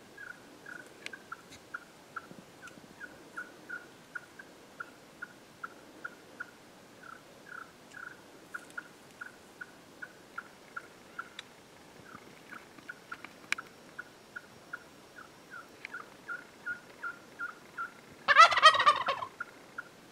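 A Gould's wild turkey gobbles once near the end, a loud rattling call about a second long. Under it, throughout, a faint steady series of short high notes, about two or three a second.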